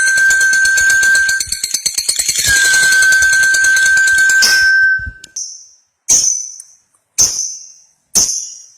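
Lovebird giving its long chattering trill (ngekek panjang), a steady high tone with rapid fine ticking, which breaks off about five seconds in. It is followed by three short, sharp, high chirps about a second apart.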